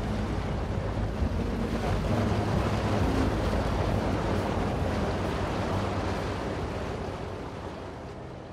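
A small ferry under way: the engine's steady low hum under the rush of water along the hull, with wind buffeting the microphone. The sound fades down near the end.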